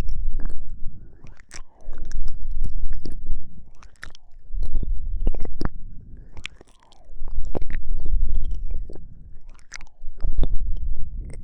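Close-miked ASMR mouth sounds: wet lip smacks and tongue clicks, over soft panting breaths that swell and fade about every two to three seconds.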